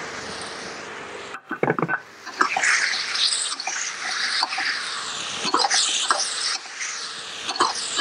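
Sauce sizzling and bubbling in a steel wok as fried fish pieces go in and are stirred, with a metal spatula scraping and clinking against the wok several times.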